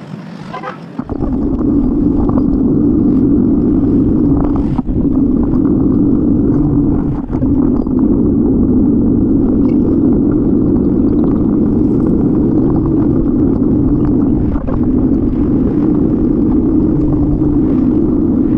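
Steady wind buffeting and road rumble on a bicycle-mounted camera while riding, quieter for about the first second, then constant. A few short knocks break through along the way.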